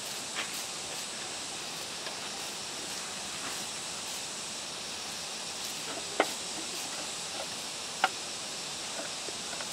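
Steady outdoor hiss with a faint, high steady tone, broken by a few sharp clicks; the two loudest clicks come about six and eight seconds in.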